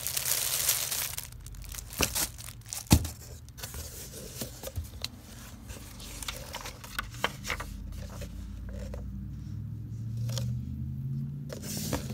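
Plastic shrink-wrap crinkling as a wrapped cloth map is handled, then scattered taps, knocks and rustles of packaged games products being moved about in a cardboard box, with one sharp knock about three seconds in.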